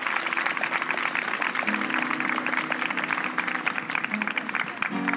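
Acoustic guitar playing held chords that change twice, under a crowd applauding.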